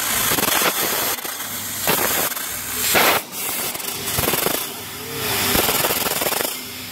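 Fiber laser cutting machine cutting thin sheet steel: a steady hiss from the cutting head that swells and drops about once a second as it works through the cuts.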